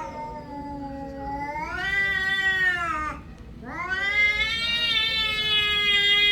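Cat yowling: two long, drawn-out caterwauling calls, the second starting about three and a half seconds in and held steady.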